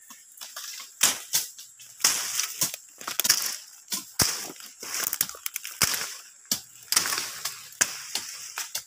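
Dry cut brush crunching and rustling, with leaves crackling and a string of sharp twig snaps scattered through.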